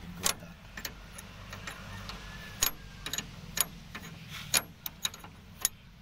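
Sharp, irregular metallic clinks of an open-end spanner knocking against the nuts and fittings of an air compressor's diaphragm housing as it is worked loose by hand, about ten in a few seconds, over a steady low hum.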